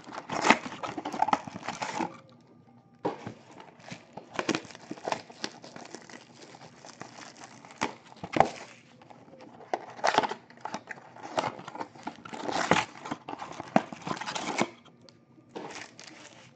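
Foil baseball card packs crinkling and rustling as they are handled and stacked, in irregular sharp crackles with two short pauses.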